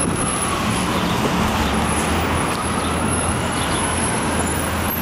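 City street traffic: a steady rumble of vehicle engines and tyres.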